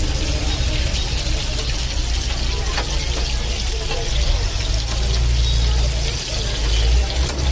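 Bread pakoras sizzling as they deep-fry in a wide kadhai of hot oil, a steady frying hiss. A strong low rumble runs underneath, louder in the second half.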